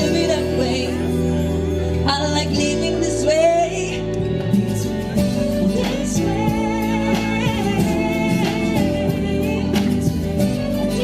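A song playing: a singing voice over held instrumental chords.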